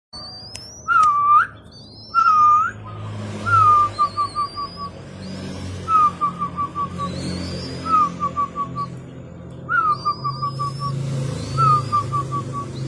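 Zebra dove (perkutut) cooing in its repeated song. Each phrase is a swooping opening note followed by four or five quick clipped coos, and it comes about seven times, roughly every two seconds.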